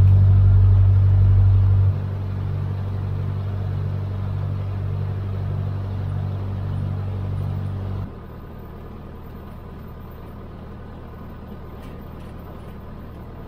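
Cessna 152's four-cylinder Lycoming engine and propeller running steadily as a low drone. It drops suddenly in level about two seconds in and again about eight seconds in.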